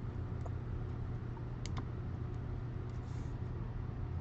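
A few faint, sharp clicks and taps over a steady low hum.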